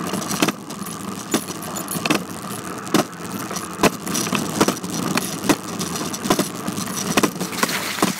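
Bicycle rattling and clicking as it is ridden, with irregular sharp knocks over a steady rumbling noise.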